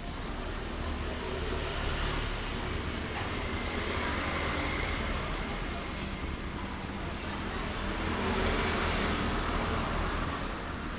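Steady road traffic noise, a rushing sound with a low hum underneath that swells twice as vehicles pass.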